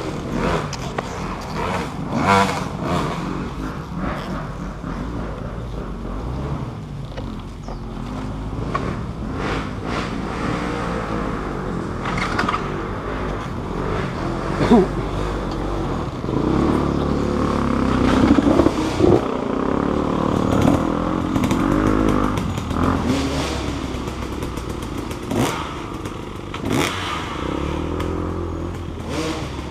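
Off-road motorcycle engine running and revving up and down over rough ground, with scattered knocks and clatter from the bike's ride.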